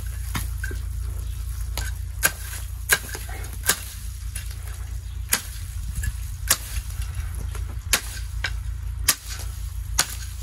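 A blunt billhook hacking at pine branches: about ten sharp blows at uneven intervals. The blade is so dull that each branch takes many blows instead of one.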